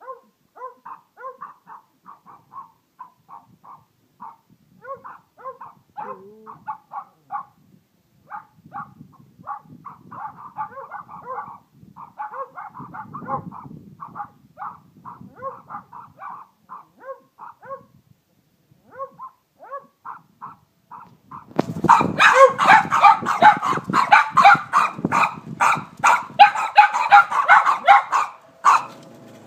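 A hen gives soft short clucks, repeated a few times a second. About two-thirds of the way through, a loud scuffle breaks out: a hen squawking and a dog barking and yelping as she attacks the Cavalier spaniel that has come too close to her food.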